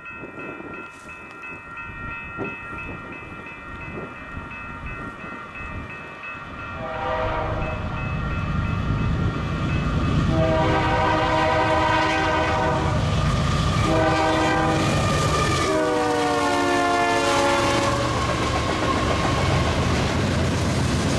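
Grade-crossing bell ringing as a Union Pacific freight train approaches. The lead locomotive's air horn then sounds four blasts, the last one dropping in pitch as the engines pass. After that comes the steady rumble and clatter of freight cars rolling by.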